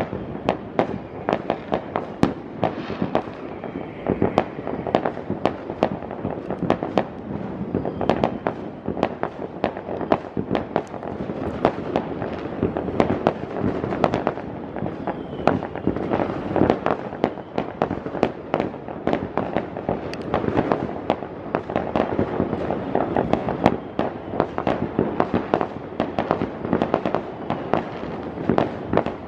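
Fireworks going off all around: a dense, unbroken stream of sharp bangs and crackles from many shells at once, with no pause and no single burst standing out.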